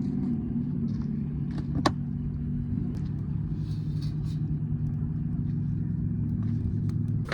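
An engine running steadily at idle, a low even hum, with a single sharp click about two seconds in.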